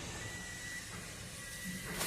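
An electronic warning beeper sounding two half-second beeps on one high pitch, about a second apart, over steady background noise, like a vehicle's reversing alarm.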